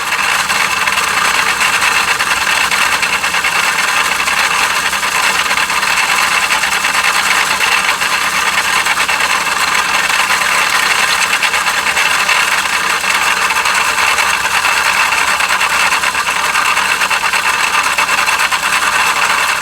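Daihatsu KF three-cylinder engine running with a loud, steady grinding rasp from its failed water pump. The noise cuts off abruptly at the end.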